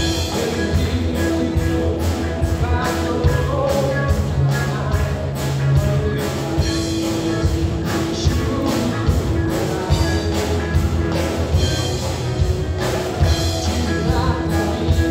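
Live rock band playing: electric guitars, bass guitar and drum kit, with a steady drum beat.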